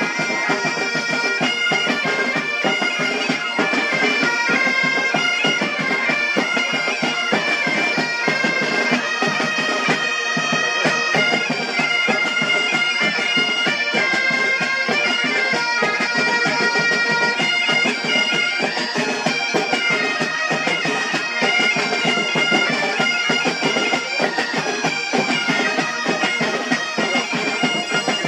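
Military pipe band playing a tune: several bagpipes in unison over snare drums and a bass drum keeping a steady beat.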